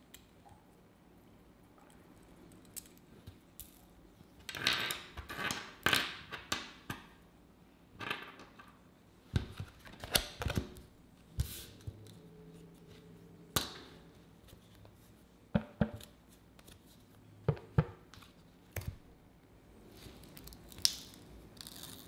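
Hands handling small fingerboard parts and paper on a tabletop: scattered light clicks and taps with short bursts of paper rustling. Near the end, the backing sheet peels off a piece of grip tape.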